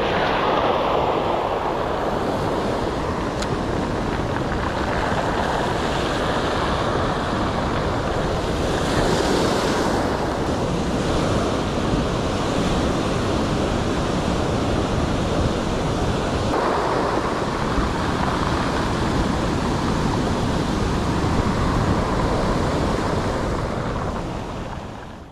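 Ocean surf breaking and washing up a cobble beach, a steady rush with wind on the microphone; it fades out near the end.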